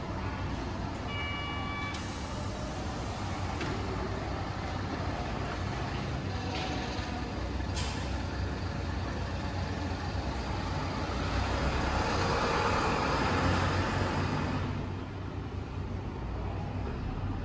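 Diesel route bus at a stop, its engine idling, with a short electronic chime about a second in and a sharp hiss of released air near eight seconds. From about eleven seconds the engine runs louder for a few seconds, then drops off suddenly.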